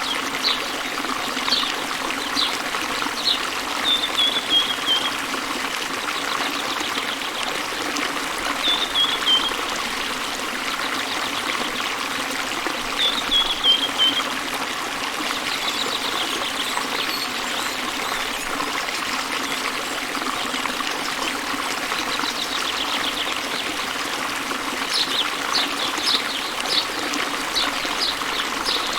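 Running water trickling steadily, with small birds calling over it: three short falling runs of high notes, and quick high chips at the start and again near the end.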